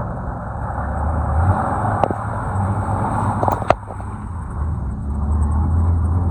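Off-road vehicle engine running steadily at a low pitch, with a few sharp knocks around the middle.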